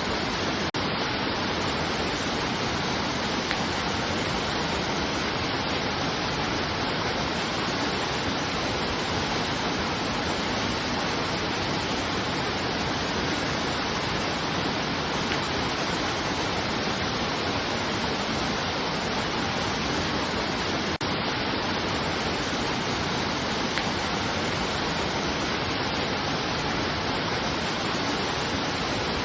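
Steady, even rush of falling water that holds the same level throughout.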